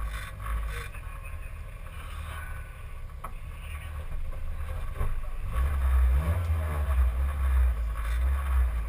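Simca 1000 rally car's rear-mounted four-cylinder engine running while the car stands still, a low rumble that gets noticeably louder from about halfway through as the revs come up.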